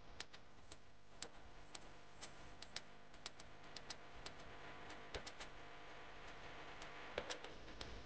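Faint, irregular small clicks and taps, about one or two a second, over a faint steady hum.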